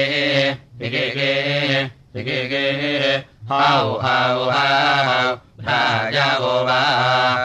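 Samaveda gana of the Kauthuma recension, chanted in a low voice. The chant moves in long held, slowly wavering tones, broken by short pauses every one to two seconds.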